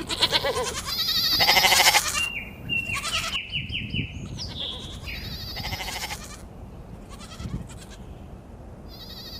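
Sheep bleating: several quavering bleats, the loudest in the first two seconds, another about five seconds in and one more near the end.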